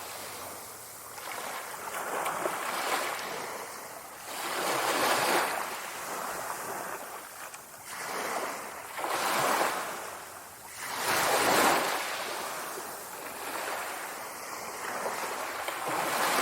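Sea waves surging and washing in one after another, a rushing surf that swells and ebbs every two to three seconds.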